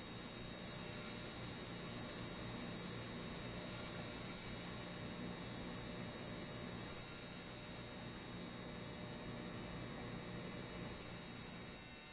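Two high, pure whistling tones sounding together. They drift slowly toward each other until they merge into one about seven seconds in, then draw apart again, growing fainter after the merge.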